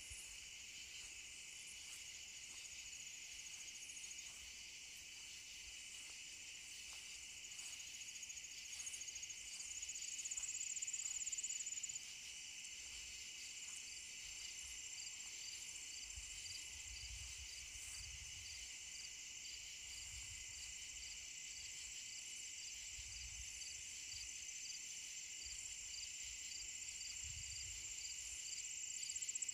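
Night insect chorus of crickets trilling steadily, several overlapping at different high pitches, one giving a quick repeated chirp. Low handling rumbles come now and then in the second half.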